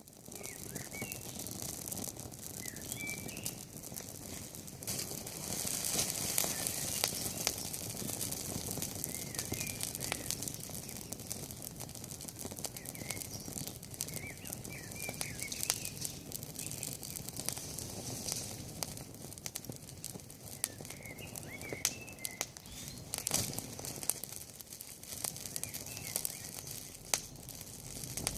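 Wood campfire crackling steadily with many sharp snaps. Small birds chirp briefly now and then.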